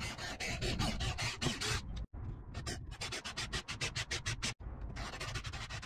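Power drill with a twist bit boring into a wooden block, a rough scraping, rasping cut with a fast pulsing beat. The sound drops out briefly twice.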